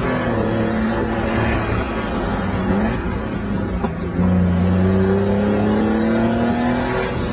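Honda Beat's three-cylinder engine heard from inside the cabin, revs low and uneven for the first few seconds, then pulling hard from about four seconds in, its pitch climbing steadily for about three seconds before dropping off near the end.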